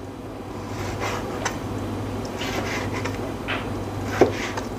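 Kitchen knife cutting raw lamb into cubes, with a few light knocks of the blade on a plastic cutting board; the sharpest comes a little after four seconds in. A steady low hum runs underneath.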